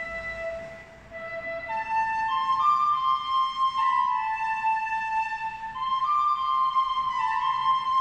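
Flute-like whistling in held notes that step up and down in pitch every second or two, sometimes two notes sounding at once. It dips briefly about a second in. The title presents this as the sound of a door.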